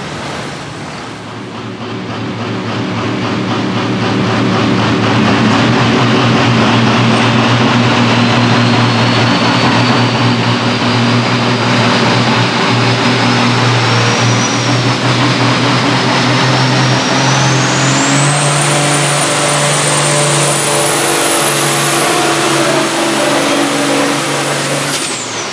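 Ford 9700 pulling tractor's turbocharged six-cylinder diesel running hard under full load on the sled, with a high turbo whistle that climbs steadily in pitch through the pull. Near the end the whistle falls away sharply as the engine comes off the throttle.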